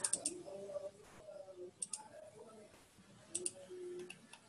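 Computer mouse clicking, a few quick clicks at a time in three clusters: at the start, about two seconds in, and about three and a half seconds in.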